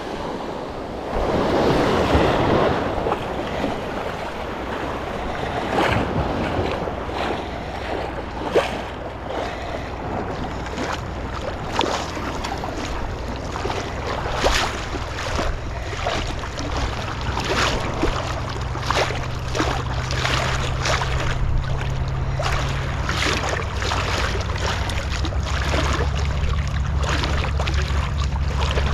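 Beach surf washing in, with wind buffeting the microphone, and a run of short splashes from legs wading out through the shallow water.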